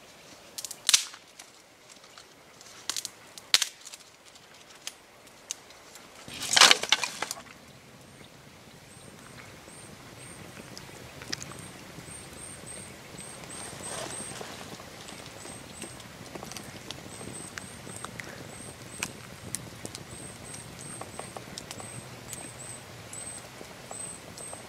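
Several sharp snaps and cracks of wood over the first seven seconds, the loudest about six and a half seconds in. Then a wood campfire burning steadily, crackling and popping, with a faint high chirp repeating over it.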